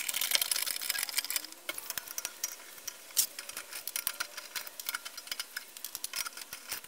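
Ratchet wrench clicking on a car's wheel nuts, in fast runs of clicks for the first second and a half, then in shorter scattered runs with the odd metal tap.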